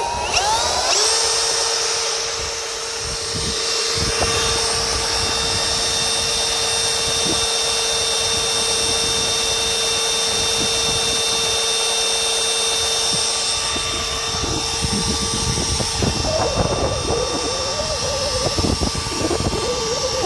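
Cordless Ridgid drill driving a drill-powered water pump, trigger clamped on: the motor whines up to speed in the first second, then runs steady with a high whine while the pump draws water. A wavering sound joins it in the last few seconds.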